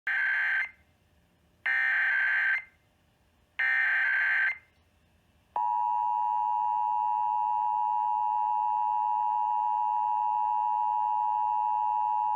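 Emergency Alert System alert tones: three short bursts of screeching digital SAME header data, about two seconds apart, then about five and a half seconds in the steady two-tone EAS attention signal begins and holds. This is the opening of a statewide EAS test.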